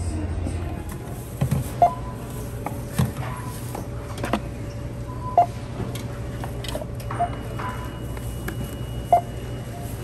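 Self-checkout barcode scanner beeping as items are scanned: short single-pitched beeps a few seconds apart, with knocks and clicks of hard plastic drawer organizers being handled, over a steady low store hum.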